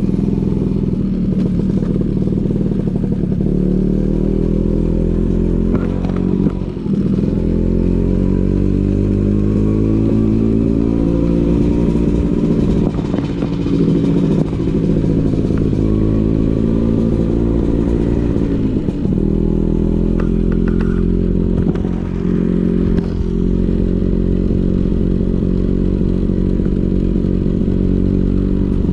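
Vespa PX 150's two-stroke single-cylinder engine running through a DRC Victory Racing aftermarket exhaust while riding. The engine note rises and falls with the throttle, with a few brief dips as the throttle is eased off.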